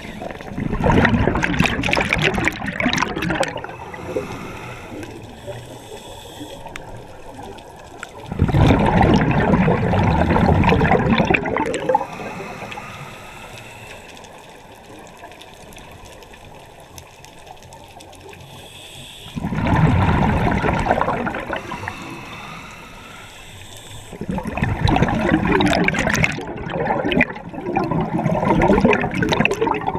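Scuba diver's exhaled breath bubbling out of the regulator underwater, in four bubbly rushes of a few seconds each with quieter stretches between them.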